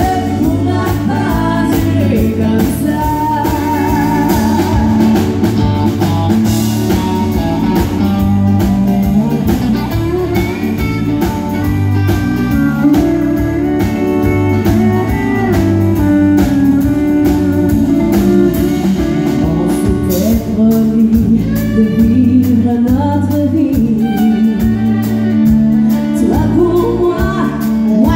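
Live country band performance: a woman singing into a microphone over the band, with a pedal steel guitar among the instruments.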